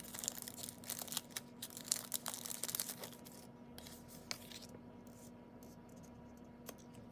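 Crackling and crinkling of a thin plastic sticker packet being opened and handled by hand, the stickers slid out of the sleeve. The rustle is busiest in the first three seconds, then thins to faint occasional handling noise.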